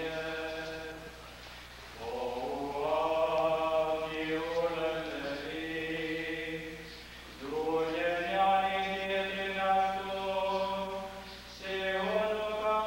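Voices singing a slow liturgical chant in long held phrases, with brief breaks between phrases about 2, 7½ and 12 seconds in.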